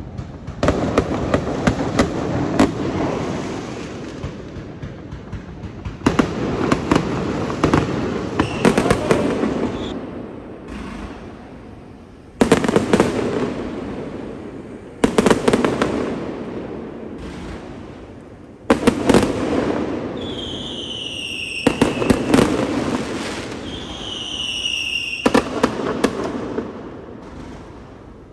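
Fireworks display going off in about seven volleys of sharp bangs and crackling, each a few seconds long with quieter gaps between. Two short falling whistles sound in the later part.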